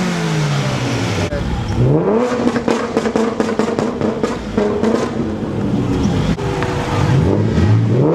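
Car engine revving up and down several times: the pitch drops, climbs and holds for a couple of seconds, then falls and rises again near the end.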